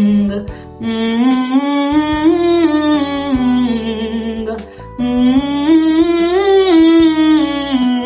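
A woman's voice sings the 'ng' vocal warm-up on a closed hum. She gives two phrases, each stepping up in pitch and back down like a scale, with a short break between them about five seconds in.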